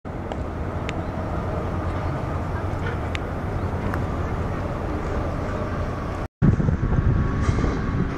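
Wind buffeting the camera microphone on an open seafront, a steady low rumble. After a brief cut about six seconds in, it comes back in stronger, uneven gusts.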